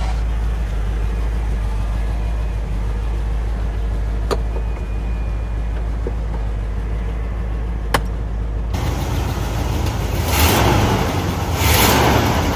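Power convertible top of a 1973 Cadillac Eldorado folding down: a steady low hum from the top motor over the idling engine, with a couple of sharp clicks from the mechanism. About nine seconds in, the sound cuts to two loud rushing surges.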